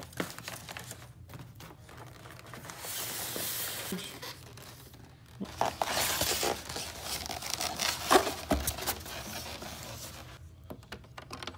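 Cardboard box and foam packing rustling, scraping and crinkling as an air purifier is pulled out of its box, with a few sharp knocks; the loudest stretches come about three, six and eight seconds in.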